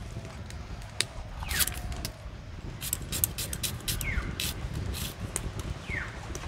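Knife cutting an onion into small pieces: irregular crisp cuts and taps, with wind rumbling on the microphone.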